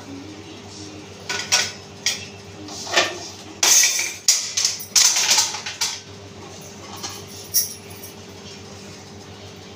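Metal kitchenware being handled at a shelf: steel pots, plates and utensils clinking and knocking together in a run of clatters, busiest around the middle, with one last clink near the end, over a steady low hum.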